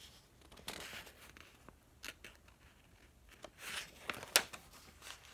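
Faint paper rustling as a picture-book page is handled and turned, the turn coming in a louder rustle with a sharp flap near the end.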